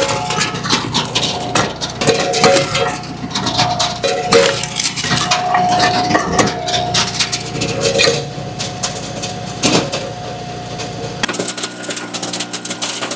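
Split firewood clattering and knocking as pieces tumble off a running firewood conveyor onto the pile, over the steady hum of the conveyor's machinery. About two seconds before the end the clatter thins and a steadier mechanical running sound takes over.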